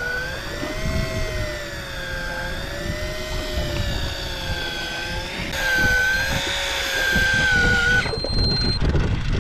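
Electric fishing reel motor winding in line with a fish on: a whine that slowly rises and falls in pitch over wind and wave rumble, stopping about eight seconds in.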